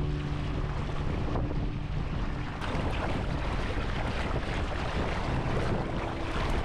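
Water rushing and splashing along the hull of a small sailing dinghy moving at speed under sail, with wind buffeting the microphone.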